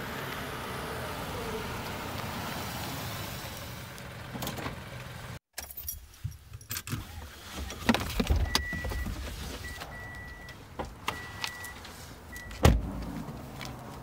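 A car approaching with a steady hiss of tyres and engine; then, after a cut, the car's clicks and knocks, a high warning chime beeping on and off, and one loud door thump near the end.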